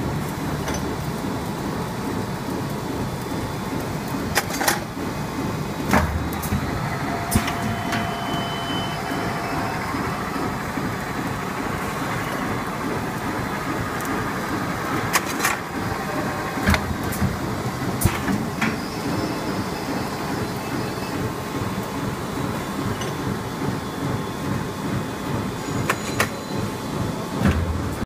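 GUR-IS PS-ROLL 420 bag-making machine running, sealing and perforating polyethylene film into bags on a roll: a steady mechanical noise with a few sharp clicks and knocks at irregular intervals.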